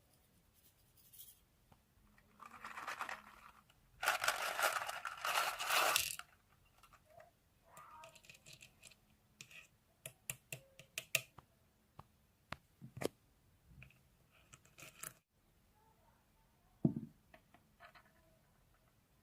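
Ice being poked and pushed about: two bouts of scraping, rustling noise, then scattered light clicks and taps, and one soft thump near the end.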